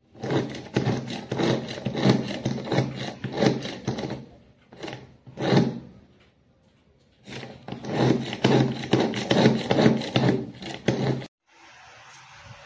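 Electric food chopper running in two bursts of about four seconds each: a motor hum under dense rattling and knocking as the spinning blades hit pieces in the glass bowl. There are a couple of short knocks between the bursts.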